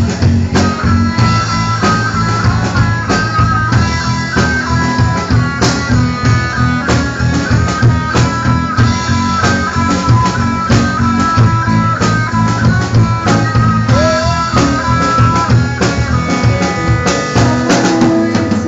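Instrumental break of a rock song: a guitar playing a melodic line over bass and drums with a steady beat, no singing.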